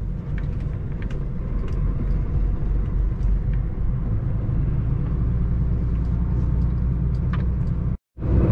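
Semi-truck's diesel engine running, a steady low rumble with a few faint clicks.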